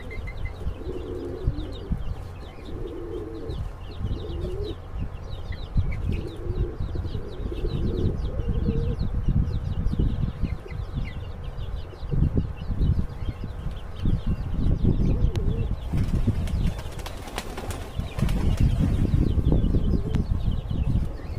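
Domestic Tehrani pigeons cooing in repeated low phrases for the first several seconds, over near-constant wing flapping and fluttering. Small birds chirp faintly in the background.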